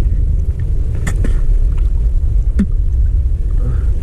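Wind buffeting the camera microphone over choppy water, a steady low rumble, with a few small knocks about a second in and again past two and a half seconds.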